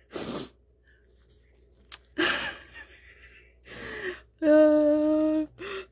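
A woman's breathy exhales and sighs, then a wordless vocal groan held on one steady pitch for about a second near the end.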